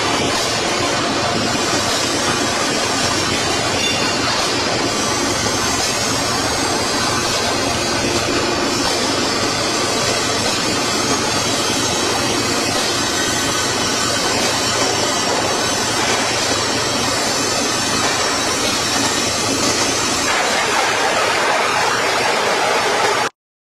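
Steady, loud noise of factory machinery running, cutting off suddenly near the end.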